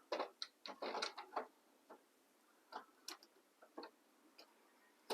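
Irregular light clicks and knocks of plastic and metal parts as the fuser assembly is fitted back into an HP 2055 laser printer, gear side first: a quick cluster in the first second and a half, then a few sparse ticks.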